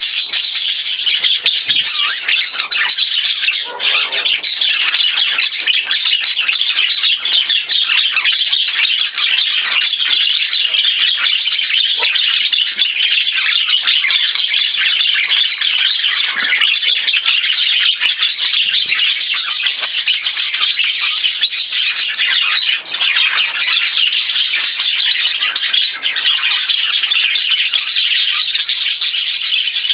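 Budgerigar warbling in a rapid, unbroken stream of chirps, chatter and squawks: a male budgie's courtship warble directed at a female.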